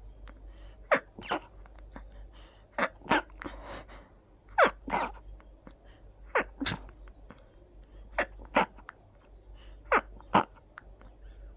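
A person sneezing over and over in a fit: six pairs of short, sharp sneezes in quick succession, a pair every one and a half to two seconds.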